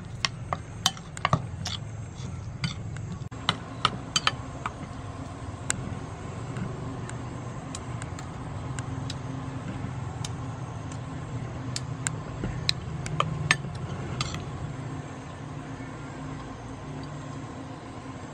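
Metal spoon clinking against a ceramic bowl while a dipping sauce is stirred: a quick run of sharp clinks in the first few seconds, then scattered ones, over a steady low hum.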